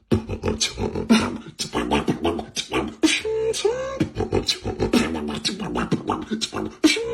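Solo human beatboxing: a fast, dense stream of mouth-made kick, snare and hi-hat sounds, with a hummed pitched tone about three seconds in and again near the end.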